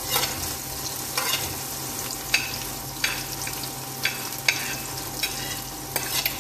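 Diced onion sizzling as it goes into hot olive oil with frying ginger and garlic in an aluminium wok, with a slotted metal spatula scraping and clinking about once a second.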